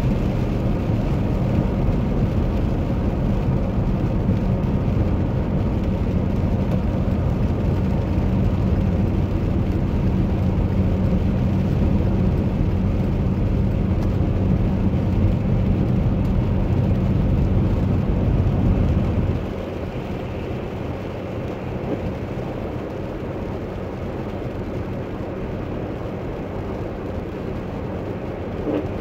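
Car cabin noise while driving on a wet highway in rain: steady tyre hiss and road rumble with a low engine hum. About two-thirds of the way through, the deep rumble drops away and the overall level falls to a quieter, steady hiss.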